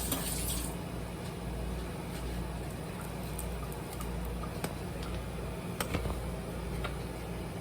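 Kitchen tap running as a spoon is rinsed, shut off under a second in; then a steady low hum with a few faint clicks.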